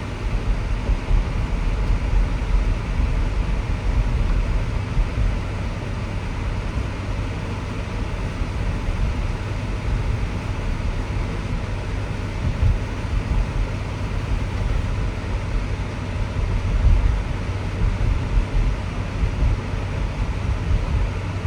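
Steady driving noise of an electric Tesla on rain-wet roads: a continuous low rumble with an even hiss of tyres on wet pavement.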